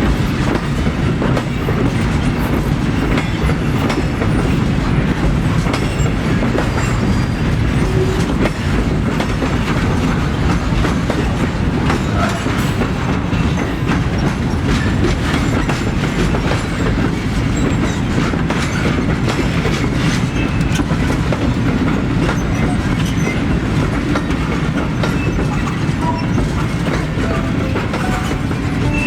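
Freight train with a T44 diesel locomotive running along the track: a steady low rumble, with wheels clicking over the rail joints throughout.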